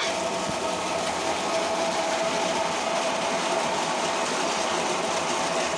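Irrigation water pump running steadily, with a steady hum over the rush of water pouring from its outlet pipe into a concrete tank.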